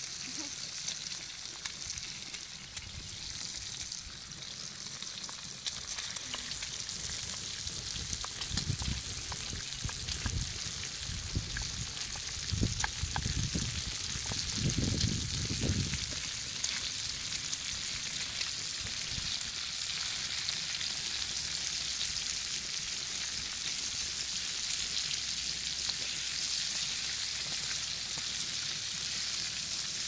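Diced bacon and chopped onion frying in a cast-iron skillet over a campfire: a steady sizzling hiss. A few low rumbles come and go around the middle.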